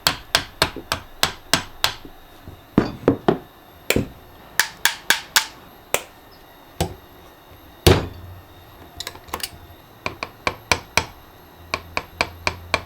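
Sharp metal taps and knocks in irregular quick runs: a stuck router bit and collet being tapped to knock them loose from the spindle. One knock about eight seconds in is the loudest.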